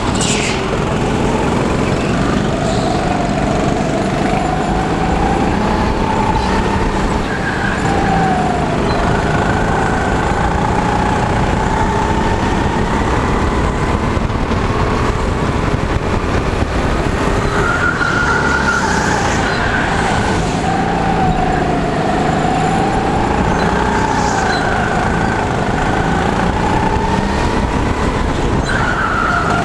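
Go-kart engine running hard under the driver's seat, its pitch rising and falling over and over as the kart speeds up along the straights and slows for the corners.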